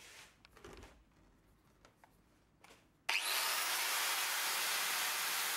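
A few light handling knocks and rustles, then about three seconds in an angle grinder switches on with a brief rising whine and runs steadily, its flap disc skimming the edge of a metal faceplate flush with the wheel hub.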